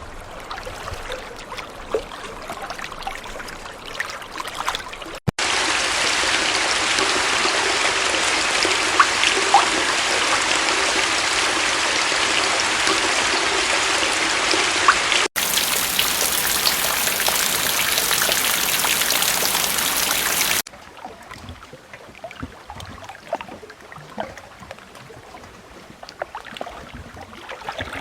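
Running water: several recordings cut together. A soft trickling flow first, then about five seconds in a sudden switch to a much louder steady rush of water, then about ten seconds later a hard cut to a brighter, hissier rush, and around twenty seconds in back to a soft trickle with small splashes.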